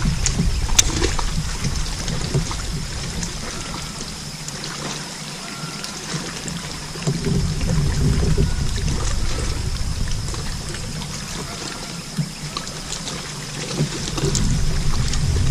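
Water lapping and trickling against a fishing kayak's hull, with an uneven low rumble of wind on the microphone and a faint, steady high tone.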